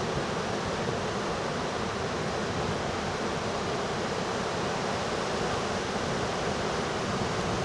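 Steady noise of surf and wind, with no single wave or gust standing out.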